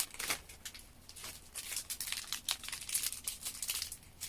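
Plastic packaging crinkling and rustling in irregular crackles as it is handled, with a short lull about a second in.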